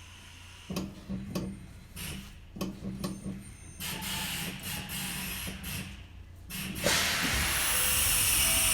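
Compressed air from the underfloor air system of a Kintetsu 9020-series train: irregular short hissing bursts, then about seven seconds in a loud, steady rush of escaping air begins. This is an abnormal air-leak noise that the crew could not stop.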